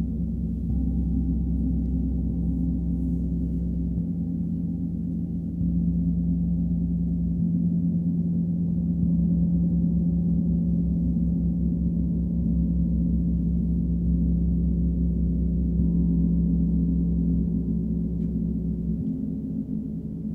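Large hammered gongs played with soft mallets, ringing as one continuous deep drone with a pulsing low hum. The drone swells about five seconds in.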